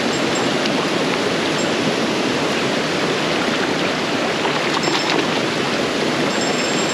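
Creek water rushing over rocks in a shallow riffle, a steady close rush.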